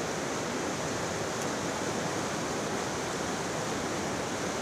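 Steady rushing of a flooded river, an even wash of water noise with no breaks.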